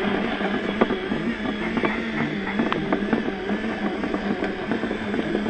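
RC dump truck running, a steady motor hum that shifts a little in pitch, with scattered sharp clicks and knocks as it drives over rough ground.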